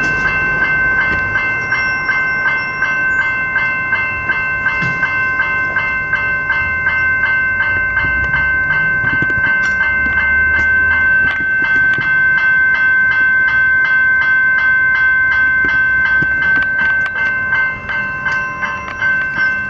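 Railway level crossing's General Signals electronic bells ringing continuously with a fast, even ding, the warning that the crossing is activated and a train is approaching.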